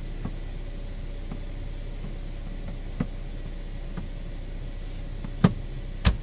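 Toyota Fortuner's 2.7-litre petrol engine idling as a steady low hum, with a few light clicks and two sharper knocks near the end.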